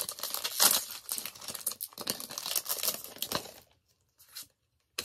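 Foil wrapper of a Pokémon trading-card booster pack being torn open and crinkled by hand. The dense crackling stops about three and a half seconds in, leaving only a few faint rustles.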